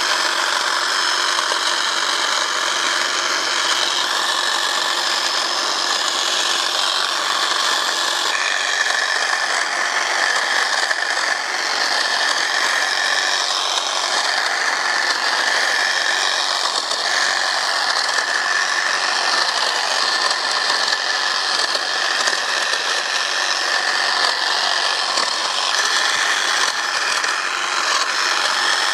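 Husqvarna Aspire 18-volt cordless hedge trimmer running steadily, its double reciprocating blades chattering as they cut through hedge foliage and woody stems, with a steady motor whine.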